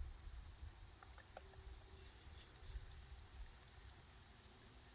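Near silence: a faint, steady, evenly pulsed high chirping of insects over a low rumble, with a few tiny clicks about a second in.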